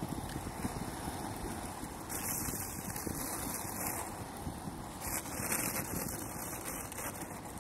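Wind rushing over the microphone at speed, gusting louder twice, over a steady rumble of inline skate wheels rolling on asphalt.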